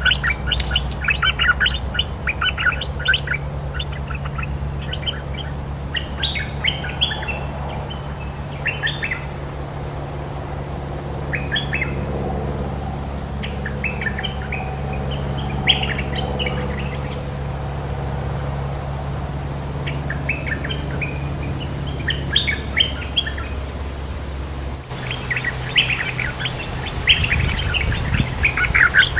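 Bulbuls calling in repeated bouts of short, quick chirpy notes: a caged decoy bulbul and wild territorial bulbuls answering each other back and forth, with short pauses between bouts. A low steady hum runs underneath and stops about 25 seconds in.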